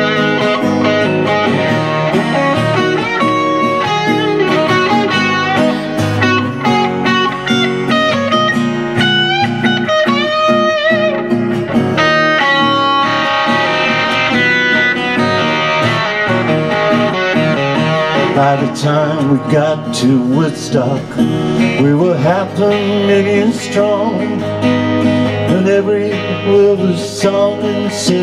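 Live guitar instrumental: an acoustic guitar strummed with an electric guitar playing lead lines with bent notes over it.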